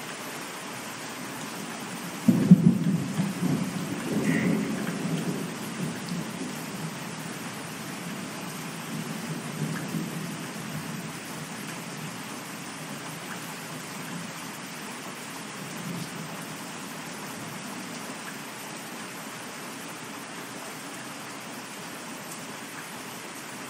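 Steady rain with a sudden thunderclap about two seconds in that rumbles and fades over several seconds. A softer roll of thunder follows about ten seconds in.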